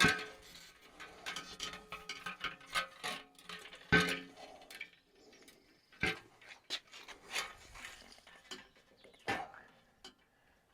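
Metal parts being handled: a ringing metallic clank right at the start and another about four seconds in, with scattered lighter clicks and knocks between them.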